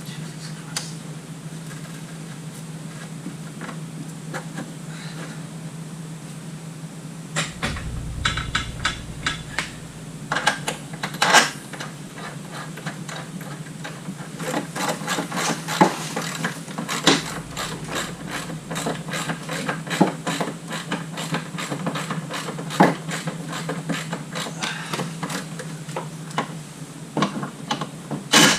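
Metal clinks, taps and knocks of tools and bolts being handled on a car's rear axle and suspension, starting a few seconds in and growing busier in the second half, over a steady low hum.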